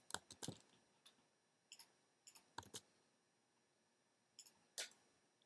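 Faint, scattered clicks of a computer mouse and keyboard during a copy and paste, about a dozen short clicks with near silence between them.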